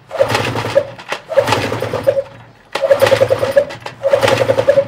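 Hangkai 15 hp two-cylinder two-stroke outboard being pull-started again and again with the choke half closed, about one pull a second. Each pull cranks the engine in a short burst of rapid pulses; the engine coughs but does not keep running.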